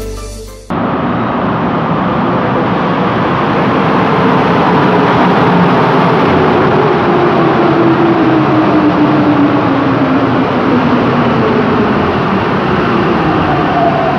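Santiago Metro train pulling into an underground station platform: a steady rumble of wheels and motors, with a whine that falls in pitch as the train slows.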